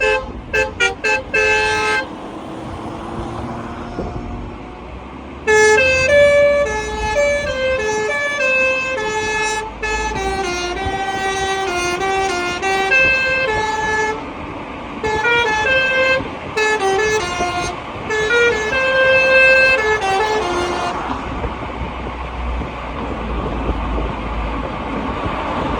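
Telolet multi-tone horn playing a tune: a quick string of short toots, then a long melody of changing notes with brief pauses. It stops well before the end, leaving only a low rumble.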